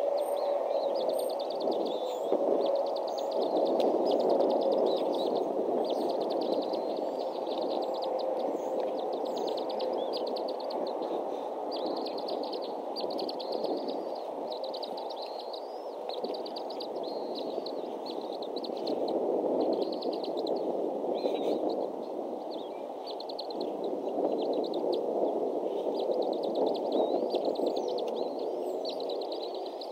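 Outdoor ambience: a steady rushing noise under a small bird's rapid, high trill that repeats every second or two.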